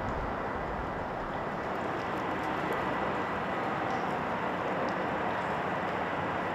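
Steady outdoor background din: a continuous even noise with a faint hum and no distinct events.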